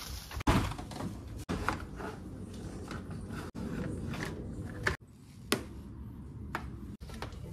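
Hands working on a car's interior plastic trim and wiring: rustling handling noise with several sharp plastic clicks and knocks. The sound breaks off abruptly a few times.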